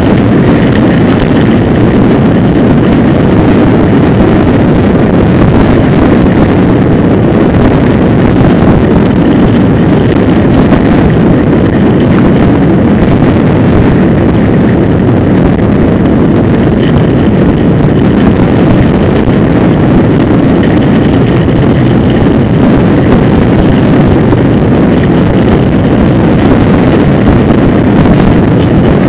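Steady wind buffeting the microphone, mixed with road rumble, from a camera on a small open vehicle riding along a street.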